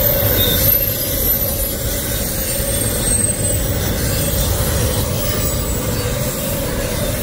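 Double-stack intermodal freight train rolling past: a steady rumble of well-car wheels on the rails, with a faint high-pitched wheel squeal over it.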